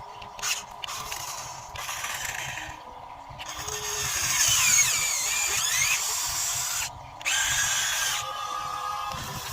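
Radio-controlled model excavator's hydraulic pump motor whining as it works, cutting out and starting again several times. The pitch glides up and down, loudest about halfway through.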